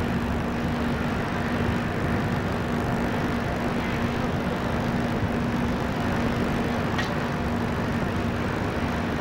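Steady rushing wind noise over an open ship's deck under a steady low hum, with no distinct events.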